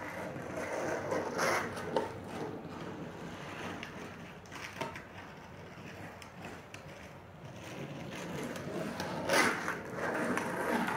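Skateboard wheels rolling on a street, the rolling noise swelling as the board passes, fading in the middle and swelling again near the end, with a few short clicks.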